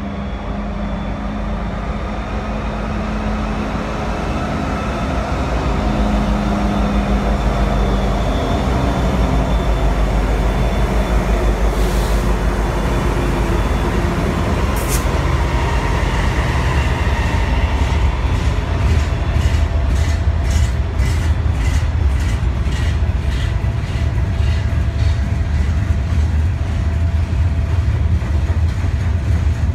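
Freight train passing close by: the lead diesel locomotives rumble as they approach and go past, then the freight cars roll by with a steady rhythmic clickety-clack of wheels over the rail joints, which starts about two-thirds of the way in.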